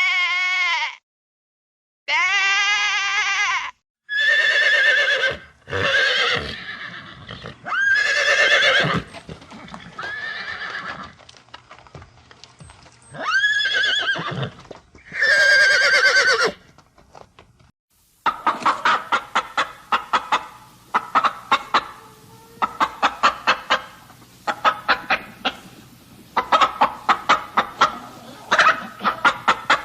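Farm animals calling in turn: a series of separate long, wavering calls that rise at the start, then, from about 18 seconds in, a fast, continuous run of short clucking calls.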